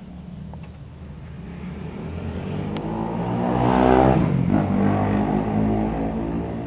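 A motor vehicle passing by: its engine grows louder, peaks about four seconds in with a sudden drop in pitch, then fades away.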